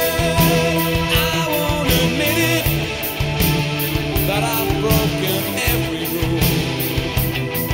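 An AOR soft rock band's studio recording playing, with a steady drum beat under the full band.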